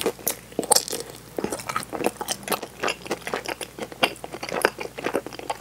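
A person biting and chewing butter-fried daifuku mochi with a browned, crisped crust: a dense run of quick, irregular clicks and small crunches.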